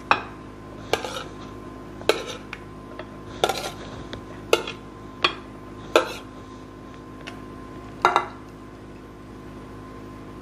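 A metal spoon clinking and scraping against a ceramic bowl and plate as corn salad is spooned out onto the plate. About eight separate clinks, roughly one a second, stopping about eight seconds in.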